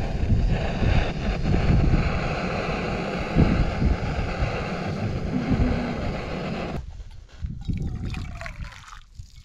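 Portable gas stove burning under a pot of boiling water, a steady rushing sound with wind buffeting the microphone. About seven seconds in it drops away to something much quieter.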